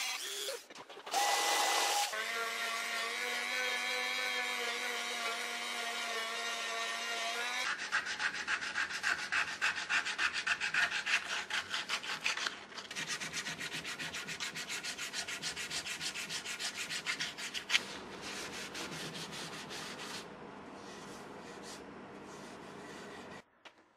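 Dremel rotary tool's motor running steadily with a small abrasive bit grinding bare wood in a carved hollow. Around eight seconds in it gives way to sandpaper rubbed by hand in quick, even back-and-forth strokes, growing fainter near the end.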